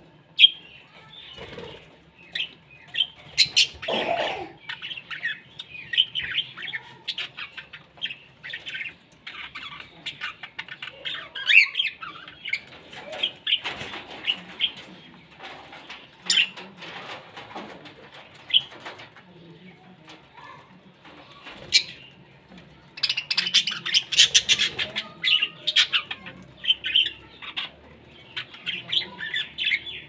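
A flock of budgerigars chirping and chattering, a dense run of short calls that grows busiest and loudest about three-quarters of the way through.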